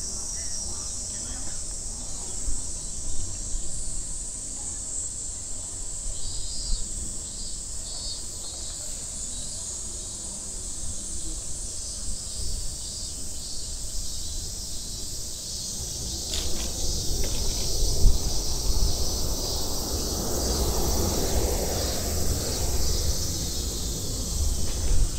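Steady chorus of summer cicadas, a continuous high-pitched drone, over a constant low rumble.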